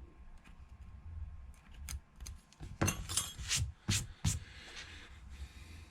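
Several sharp clicks and clinks of small hard objects being handled, bunched together about three to four and a half seconds in, over a low steady hum.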